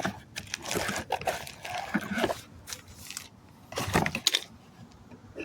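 Brake pad boxes being handled, giving irregular rustling and light knocks, with a louder clatter about four seconds in.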